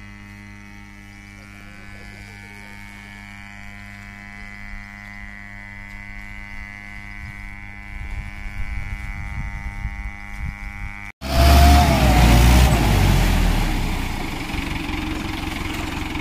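Diesel tractor engine idling with a steady buzzing hum. About eleven seconds in, the sound cuts abruptly to a much louder, rougher engine running close by, which eases back to a steadier run a few seconds later.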